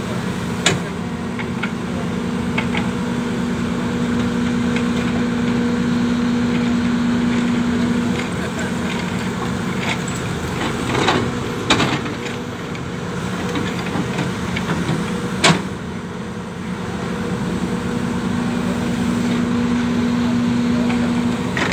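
Diesel engine of heavy site machinery running steadily at a constant speed, with a few short sharp knocks over the top.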